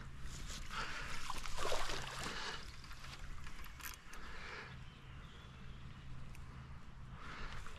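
Water splashing and sloshing in irregular bursts, loudest about one to two seconds in, as a hooked mirror carp is drawn in at the water's edge and landed.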